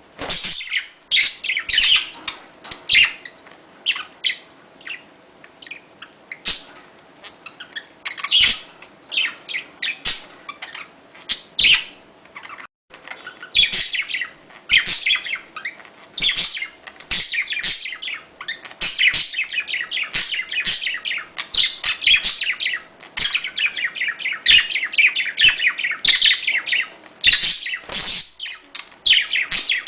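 Budgerigars chirping and warbling in dense, continuous chatter, the kind of twittering song played to stimulate breeding.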